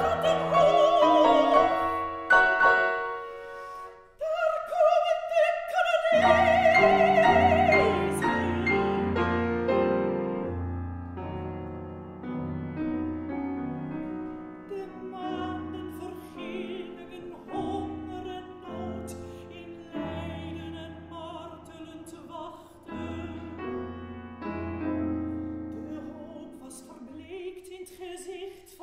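Soprano singing with a wide vibrato over piano accompaniment in a classical art song. The music breaks off briefly about four seconds in, then resumes with deep piano bass and grows gradually softer toward the end.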